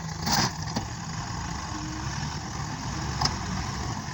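Engine of a heavy construction machine running steadily at idle, with a short loud burst of noise near the start and a single sharp knock about three seconds in.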